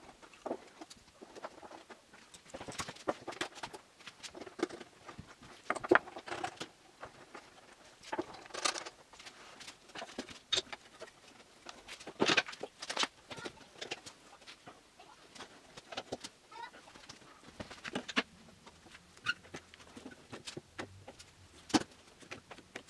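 Irregular clicks, taps and knocks of clamps and wooden parts being handled and set on a workbench, with a little rustling between them. The sharpest knocks come about 6, 12 and 22 seconds in.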